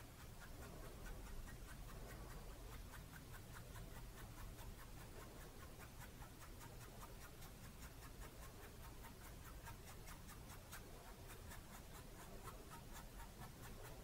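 Faint scratching of a flat paintbrush's bristles stroked repeatedly across a stretched canvas, laying on acrylic paint in quick short strokes, a few a second.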